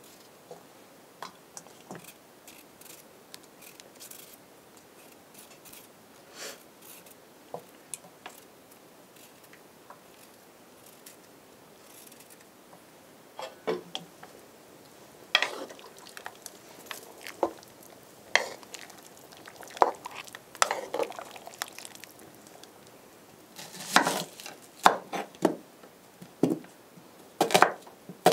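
Faint scraping and small clicks of a knife peeling potatoes, then, from about halfway, louder clinks and clatters of metal pots, lids and utensils on a cast-iron stovetop. Near the end a knife knocks on a wooden cutting board.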